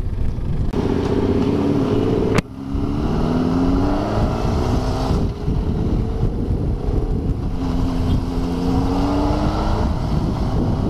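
Honda CBR600RR's inline-four engine pulling under acceleration on the road, its pitch climbing twice with a drop between, over wind rush on the microphone. A sharp click sounds about two and a half seconds in.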